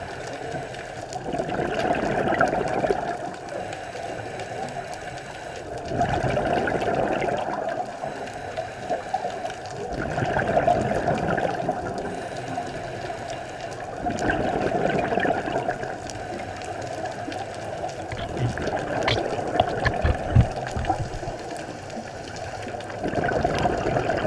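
Scuba diver breathing through a regulator, recorded underwater: a rush of exhaled bubbles swells and fades about every four seconds, with a few short knocks about twenty seconds in.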